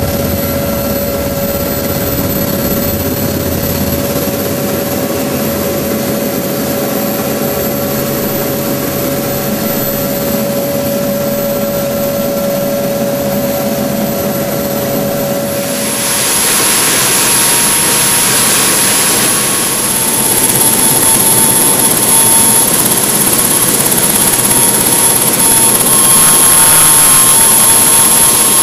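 Search-and-rescue helicopter's turbine engines and rotors running steadily, with a steady high whine, heard from inside the cabin. A little over halfway through the sound turns louder and more rushing, and the whine changes pitch.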